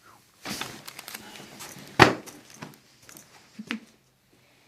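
Rustling of the patient being handled, then one loud, sharp crack about two seconds in as the neck is pulled in a chiropractic traction adjustment, followed by a couple of fainter clicks.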